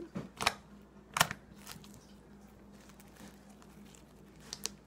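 Thick white slime with fishbowl beads being pressed and stretched by hand, giving a few sharp clicking pops as trapped air bubbles burst, the loudest about a second in and two quick ones near the end.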